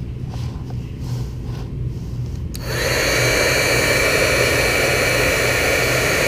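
Electric heat gun switched on about two and a half seconds in, then running steadily: a rush of air with a high fan whine, shrinking heat-shrink tubing onto a wire. Before it comes on, only a low hum and a few faint handling ticks.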